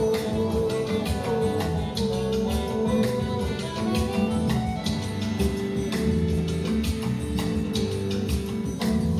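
Instrumental passage of a forró song between sung lines: sustained melody notes over a steady percussion beat.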